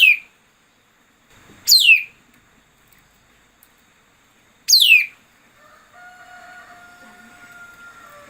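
A decoy songbird giving a loud, sharp call that sweeps steeply down in pitch, three times a couple of seconds apart, used as a lure for trapping birds. A faint steady tone comes in during the last two seconds.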